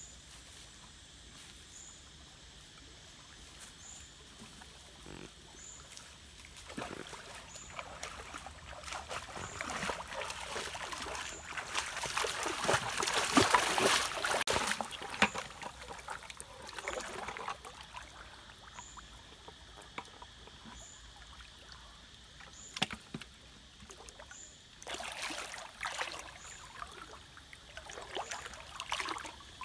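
Bare feet splashing and sloshing through a shallow stream as a man wades, building from about a quarter of the way in and loudest around the middle, with a few quieter splashes near the end. A steady high hum and a faint chirp repeating about every two seconds run underneath.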